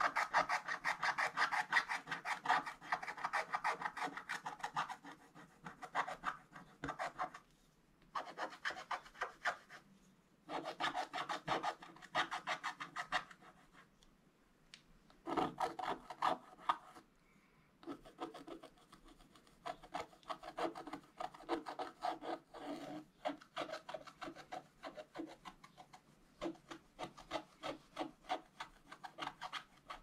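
Wooden stylus scratching the black coating off a scratch-art page: quick back-and-forth scraping strokes in spells of a few seconds, with short pauses between them.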